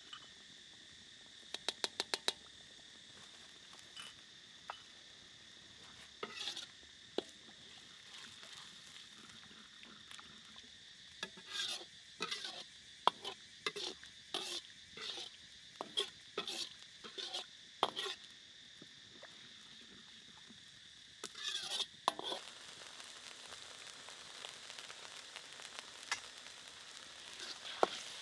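Steel ladle stirring and scraping sauce in a metal wok as it sizzles over a fire, in a run of repeated strokes in the middle and again a little later. Near the start there is a quick run of about six sharp taps.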